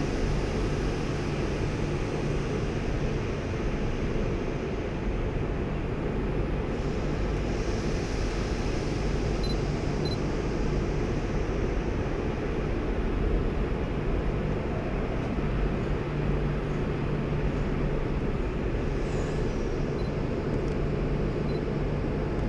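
SNCB double-deck electric passenger train at the platform: a steady low rumble with an even hum underneath.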